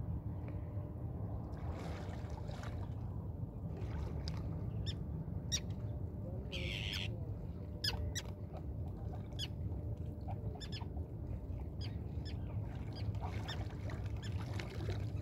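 Steady low wind rumble on the microphone, with scattered short high chirps from birds.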